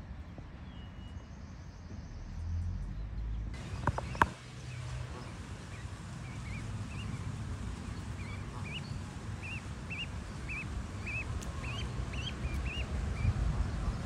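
Canada goose goslings peeping: a run of short high cheeps, about two a second, over a steady low rumble. There are a couple of sharp knocks about four seconds in.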